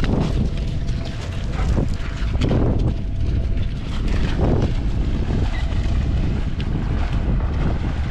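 Wind buffeting the microphone in gusts, with dogs splashing as they swim out into the river.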